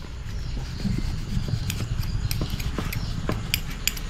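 Kitchen sounds: a few light clicks and clinks of utensils and dishes over a low steady rumble, with the clicks coming more often in the second half.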